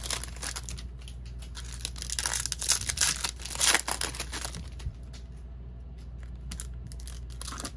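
Trading-card packaging being torn open and crinkled by hand: dense rustling and tearing for the first few seconds, thinning to occasional soft crinkles and clicks in the second half.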